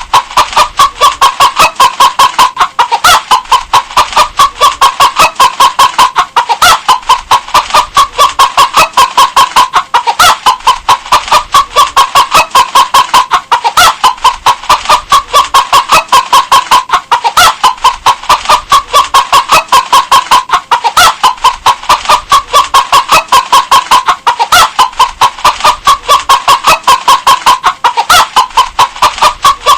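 Domestic hen clucking continuously in quick short clucks, several a second. The same few-second phrase repeats over and over, as a looped recording.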